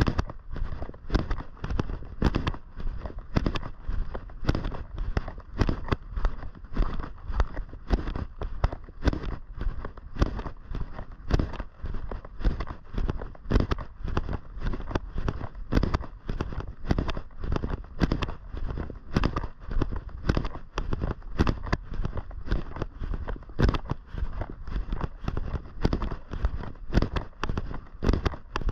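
Footsteps crunching at a steady walking pace, about two steps a second.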